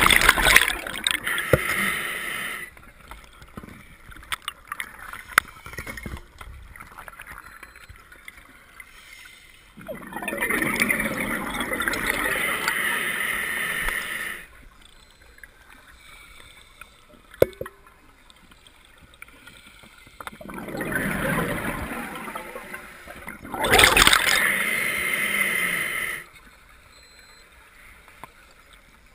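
Scuba diver's regulator underwater: exhaled bubbles rushing out in loud bursts of two to four seconds, four times, with quieter stretches between breaths.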